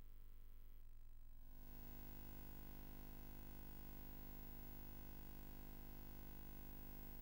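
Near silence: a faint steady hum with many overtones, growing slightly louder and fuller about a second and a half in.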